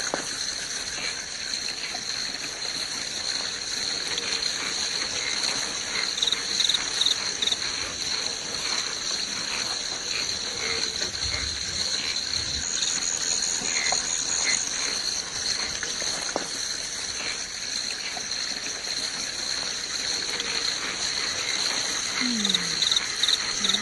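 Forest ambience: a steady insect chorus of two continuous high-pitched trills, with a few short chirps scattered through it.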